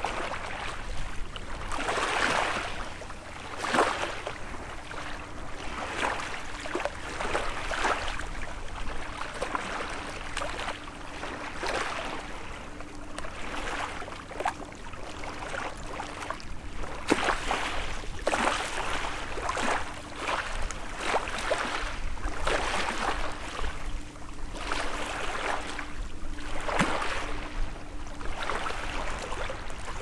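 Small waves of a calm sea lapping and splashing in uneven rushes every second or two, with a few sharp slaps, over a faint steady hum.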